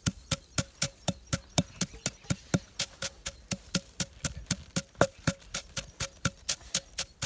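A wooden pestle pounding dry-roasted whole spice seeds in a heavy stone mortar, a steady rhythm of about four knocks a second, each knock with a short ring.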